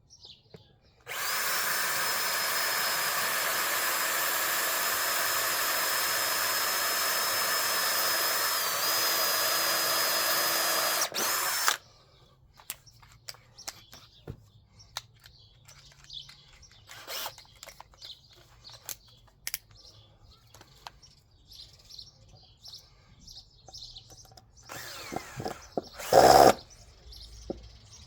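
Cordless drill running steadily into wood for about ten seconds with a high whine, then cutting off abruptly. After it come quieter clicks and knocks, and one short loud burst near the end.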